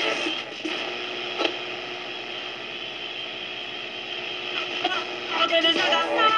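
Philips 331 three-band portable radio being tuned across the dial: a station's music drops away into a hiss between stations with a couple of faint crackles, then about five seconds in another station with music tunes in.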